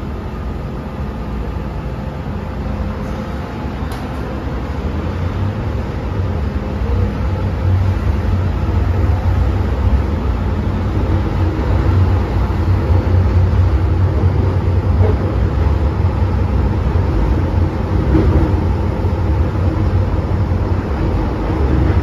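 MTR M-train metro car running on the track, a steady rumble and wheel-and-rail noise heard from inside the carriage. It grows louder about five seconds in and then holds steady.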